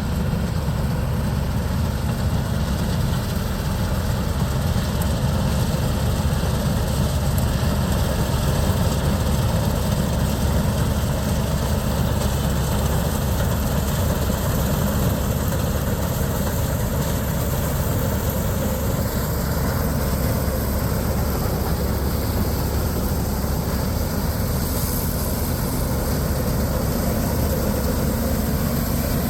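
John Deere 4420 combine's six-cylinder 359 cubic inch diesel engine running steadily.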